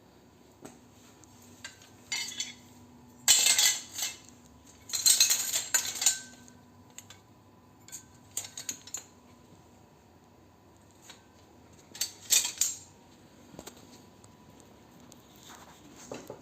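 Small metal pieces clattering and clinking as they are handled, in several separate bursts, the loudest about three to six seconds in.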